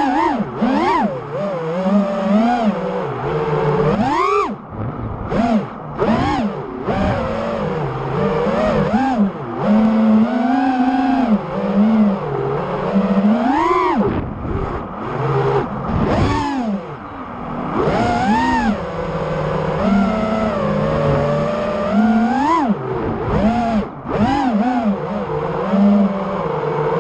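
Armattan Rooster 5-inch FPV quadcopter's four Underdog 2150kv brushless motors and Ethix Watermelon props whining. The pitch swoops up and down every second or two as the throttle is punched and cut.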